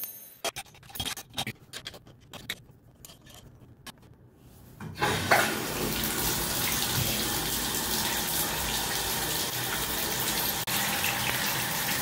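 A few clicks and knocks as a Moen slip-on tub spout is fitted onto its copper stub, then from about five seconds in, water running steadily into a bathtub.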